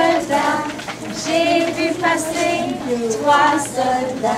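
Children and women singing a children's song together in French.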